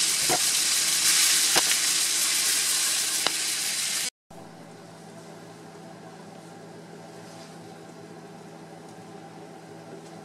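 Diced yam home fries sizzling loudly in olive oil and butter in a stainless skillet, with a few sharp clicks. About four seconds in, the sound cuts out briefly and returns as a much quieter sizzle over a low steady hum.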